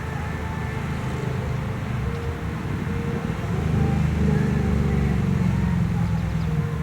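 A vehicle passing on the street: a low engine and road rumble that grows louder about halfway through and eases off near the end.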